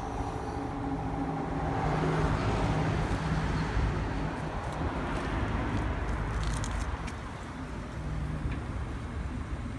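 Mitsubishi G510L 5 hp single-cylinder air-cooled petrol engine running steadily on a rubber-crawler carrier converted from a threshing machine. The sound grows louder from about one and a half to six seconds in, with a few light clicks near the end of that stretch.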